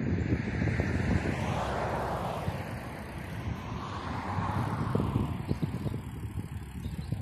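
Bicycle being ridden over a rough dirt track: a steady low tyre rumble with irregular rattles and knocks from the bike, and wind buffeting the microphone.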